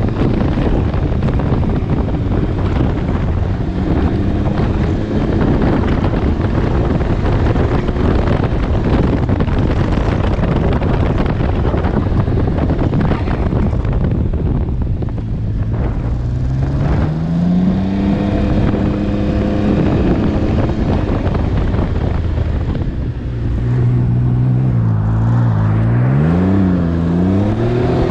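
Can-Am Ryker Rally's three-cylinder engine running on the move, with wind noise rushing over the microphone. About two-thirds of the way through the engine pitch rises as it accelerates, and near the end the revs swing up and down a few times.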